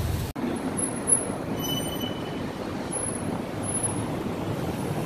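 Steady street traffic noise from passing vehicles, with a sharp knock about a second in and a brief high squeal about two seconds in. A low wind rumble cuts off abruptly just after the start.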